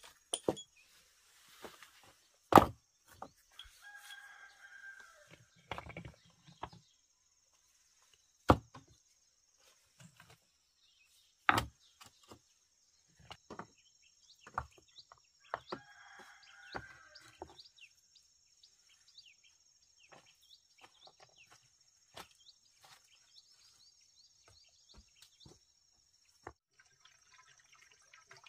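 Stones knocking and clacking against each other as they are set in place: three sharp knocks stand out over lighter clicks and scrapes. A rooster crows twice, fainter than the knocks. A steady high-pitched hum runs underneath.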